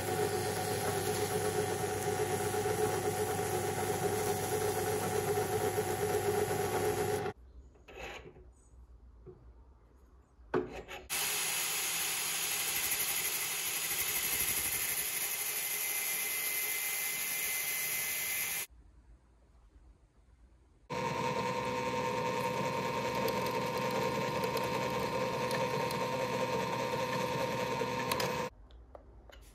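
Workshop power tools in three separate takes with short quiet gaps between them: a drill press running steadily as a threaded steel rod spins in it against sandpaper, then an angle grinder grinding the steel rod's end, then the drill press drilling into a small round steel part.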